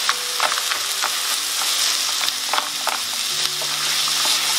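Mince, onion and frozen peas sizzling in a frying pan while being stirred with a wooden spoon, which scrapes and taps against the pan several times.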